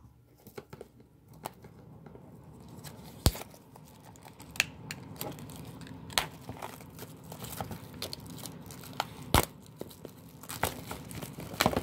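Clear plastic shrink wrap on a Blu-ray box set being picked at and torn open by hand: steady crinkling with a few sharp, loud snaps.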